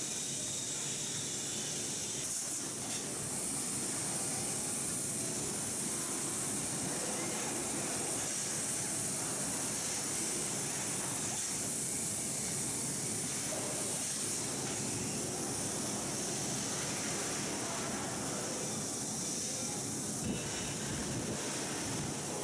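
Steady, very noisy factory-workshop din, much of it the rush of large electric fans: an even hiss with no distinct events.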